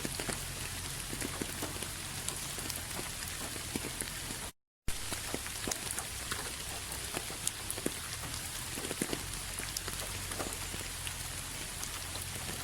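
Steady rain falling on a surface, an even hiss with many individual drops ticking through it. The sound cuts out completely for a split second about a third of the way in, then carries on unchanged.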